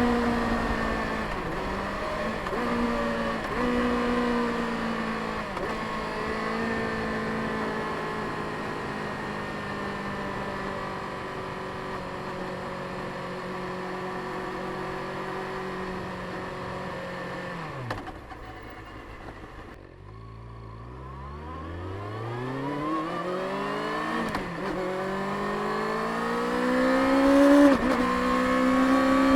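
Stock 2024 Kawasaki Ninja ZX-6R's 636 cc inline-four engine running through its stock exhaust while riding. The revs fall with a few brief dips, hold steady for a while, then drop to low revs about eighteen seconds in. They climb again from there, with a short dip near the end.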